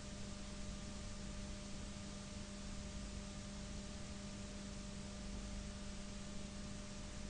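Steady hiss with a low, even electrical hum: the background noise of a recording or sound system.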